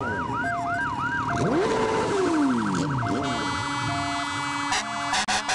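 Several fire engine sirens sounding together: a fast yelp rising and falling several times a second, then a long falling wail about a second and a half in. From about halfway through a steady blare takes over, broken into short blasts near the end.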